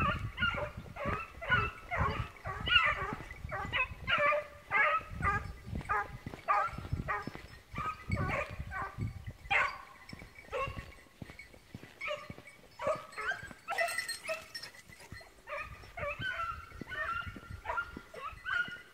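Swiss hounds (Schweizer Laufhunde) baying, many short calls in quick succession that thin out after about ten seconds. Dull low thumps sound underneath.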